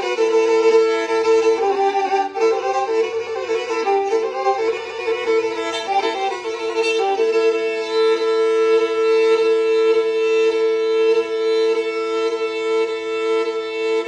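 Black Sea kemençe music: a quick bowed melody for the first half, then long held notes sounding together in a drone.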